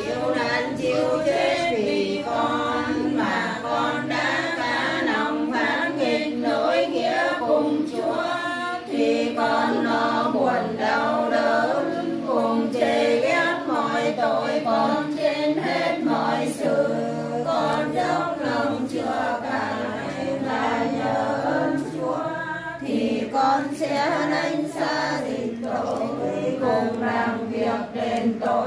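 A group of women's voices singing Catholic prayers together in Vietnamese, unaccompanied, in a steady, continuous chant.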